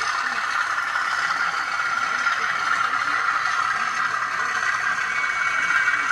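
N gauge DCC sound decoder playing a locomotive's engine sound through a tiny speaker, running steadily, with most of the sound in a narrow mid-pitched band.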